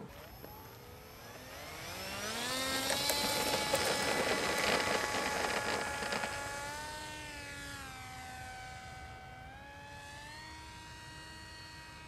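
Skywalker 1900 RC plane's electric motor and propeller throttling up for takeoff. A whine rises in pitch over the first few seconds and is loudest during the takeoff run. It then fades and wavers in pitch as the plane climbs away.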